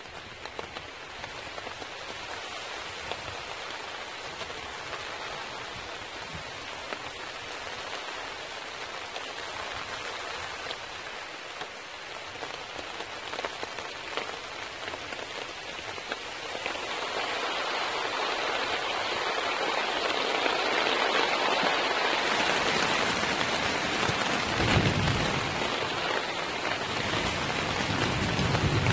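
Rain falling on the tarp overhead and on the forest around it, getting steadily heavier from about halfway through. Near the end a low rumble comes in under the rain.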